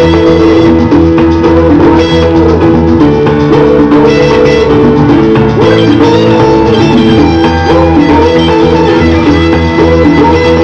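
Loud karaoke backing track playing through a PA system: an instrumental passage with guitar and drums.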